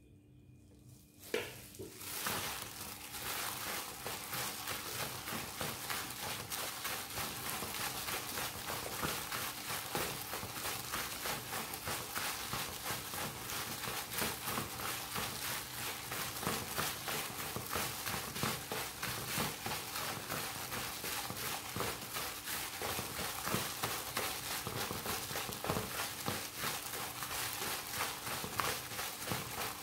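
Marinated chicken pieces being tossed, pressed and patted by plastic-gloved hands in dry seasoned flour in a plastic basin: a fast, continuous patting and rustling with plastic crinkle, starting about a second in.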